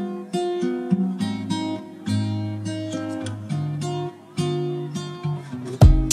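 Background music: an acoustic guitar strumming and picking a chord melody. Heavy percussion hits come in near the end.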